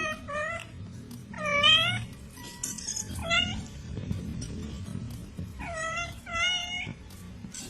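A domestic cat meowing repeatedly: about five short meows of about half a second each, some falling in pitch, with two close together near the end.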